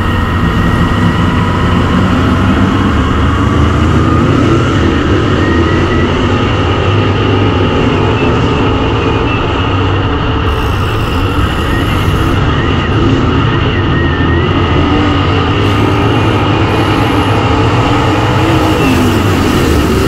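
Dirt modified race car's V8 engine running steadily at speed on a dirt oval, heard loud from an in-car camera.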